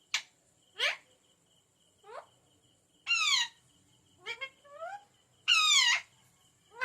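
Pet green parrot calling: a few short, sharp upward-sweeping chirps, then two longer calls about three seconds in and about five and a half seconds in, with smaller chirps between.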